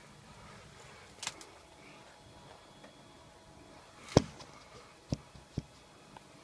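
Hisense air conditioner running with a faint steady hum, broken by four sharp knocks or clicks, the loudest about four seconds in.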